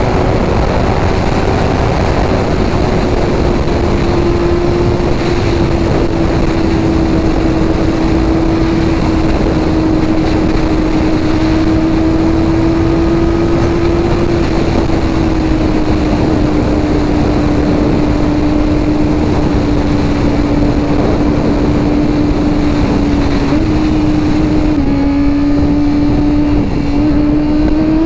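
Kawasaki ZX-25R's 250 cc inline-four engine running at a steady high pitch while riding, its note sagging slowly and then climbing again near the end, over heavy wind rush.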